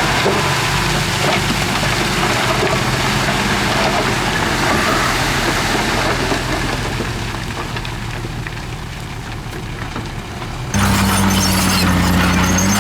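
Heavy diesel earthmoving machinery running, a noisy engine din that slowly eases off. About eleven seconds in it gives way abruptly to a louder, steady engine hum.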